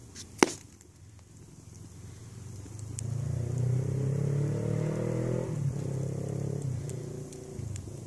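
Kiln-dried kindling burning in a wood fire, with one sharp loud pop about half a second in and a few lighter crackles. A low droning sound swells up in the middle and fades out again.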